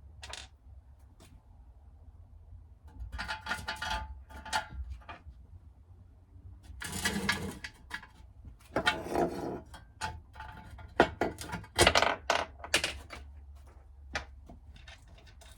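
Loose metal bolt hardware, bolts, washers and nuts, clinking and rattling as it is handled, in several irregular bursts.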